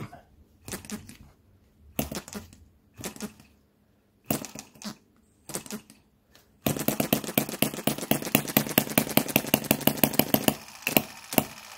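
Microcosm M17 1.6cc model hit-and-miss petrol engine being hand-started: a few scattered clicks and pops as the flywheel is flicked and the carburettor is finger-choked to draw in a priming charge, then about two-thirds in it catches and fires in a rapid string of sharp pops for about four seconds, thinning out near the end. The mixture has just been leaned, which the owner then judges too lean.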